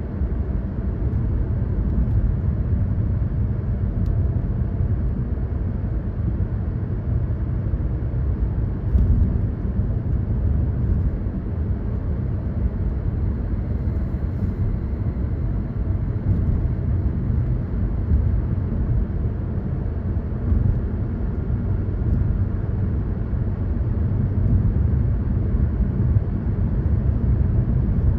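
Car driving at steady speed: a continuous low rumble of engine and road noise.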